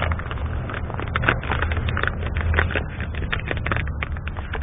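Plastic packaging and bags crinkling and crackling as they are handled and rummaged through, in quick irregular clicks, over a steady low rumble.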